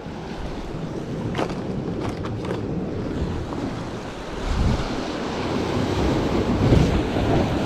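Sea waves washing against breakwater rocks, with wind buffeting the microphone; the surf swells up twice in the second half. A few light clicks come between about one and a half and two and a half seconds in.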